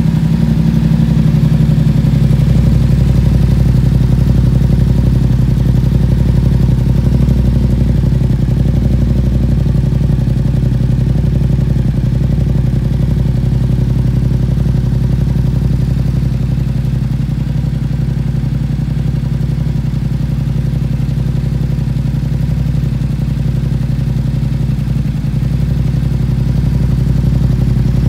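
Yamaha MT-07's 689 cc parallel-twin engine breathing through an Akrapovič carbon full exhaust system, idling steadily with a low, even exhaust note.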